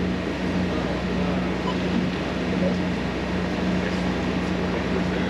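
Sailing yacht's inboard diesel engine running steadily under way, a constant hum over a fine, even low throb.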